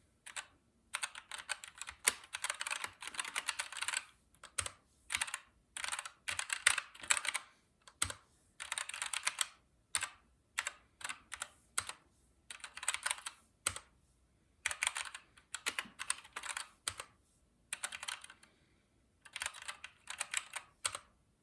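Keychron K2 mechanical keyboard being typed on: keys clack in quick runs lasting about a second each, broken by short pauses.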